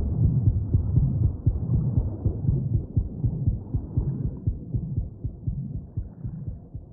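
Muffled film sound design of dense, heavy low thumping and throbbing, with no high sounds at all, fading gradually.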